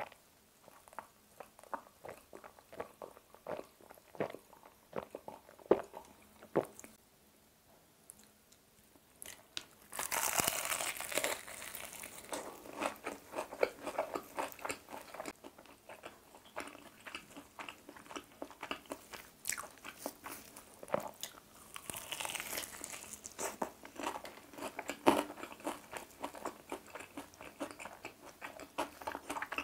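Close-miked crunching bites and chewing of crispy fried chicken drumsticks. Only a few faint clicks for the first ten seconds or so, then loud, dense crunching begins and carries on.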